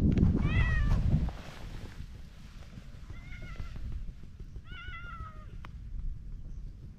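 Orange tabby cat meowing three times, short meows that rise and fall in pitch, while a hand strokes its back. A louder low rustling fills the first second.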